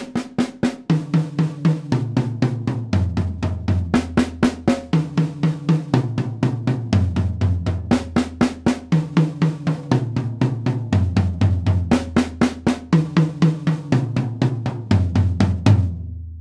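Drum kit played with a single stick in the right hand, four even strokes each on snare, first tom, second tom and floor tom, each drum lower than the one before. The pattern goes round the kit four times at a moderate tempo of about four strokes a second, and the floor tom rings out at the end.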